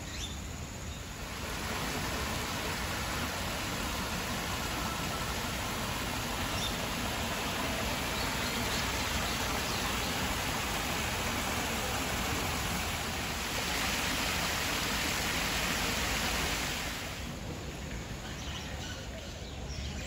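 Water running steadily over rocks and pebbles in a small stream, a rushing hiss that swells a little about three-quarters of the way through and fades near the end.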